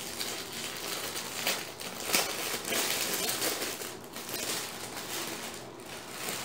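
Gold metallic gift wrap crinkling and crackling in irregular handfuls as it is unwrapped from a small item.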